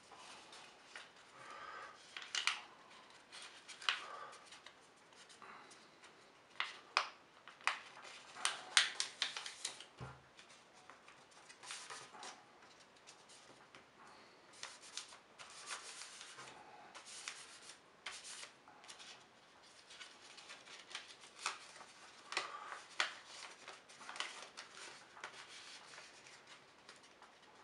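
A sheet of paper being folded and creased by hand into a paper airplane: irregular rustling, crinkling and sharp creasing rubs, with a few louder crackles and a soft thump about ten seconds in.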